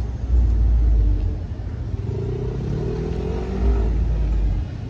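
Heavy vehicle engines running with a deep, steady rumble as a loaded truck works slowly round a bend and a car drives close by. A fainter engine note rises and falls in the middle seconds.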